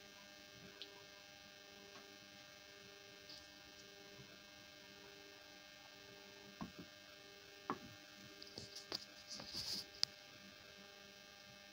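Faint steady hum, then from about six and a half seconds a few light knocks and clicks as a hand handles the Stirling engine's metal base plate seated on a steel mug, ending in a sharp click near ten seconds.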